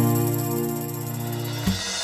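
Background instrumental music: a held chord fades and stops shortly before the end, leaving a brief gap with a faint high hiss.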